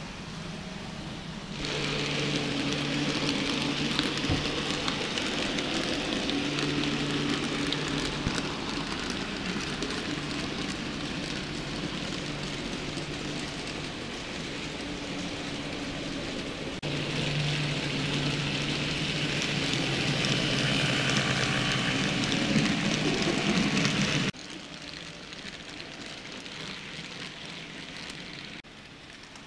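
N-scale model trains running on a layout: a steady whir of small locomotive motors, a low hum that comes and goes, over a rain-like rattle of wheels on the track. The sound starts suddenly about two seconds in and drops off abruptly near the end.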